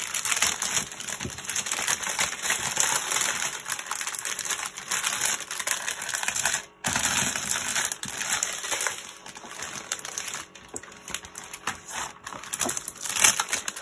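Clear plastic packets of diamond-painting drills being handled and packed back into a plastic bag: continuous crinkling of thin plastic with many small clicks and rattles of the resin gems inside, breaking off briefly about halfway through.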